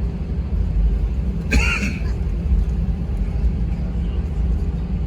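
Jet airliner cabin noise: engines and airflow make a steady low rumble. A short, sharper noise cuts in about a second and a half in.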